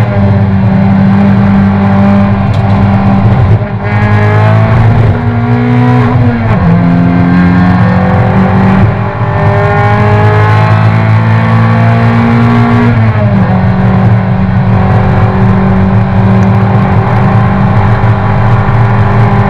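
Toyota race car's engine heard from inside the cabin, running hard at high revs. Its pitch climbs and then steps down sharply at gear changes several times.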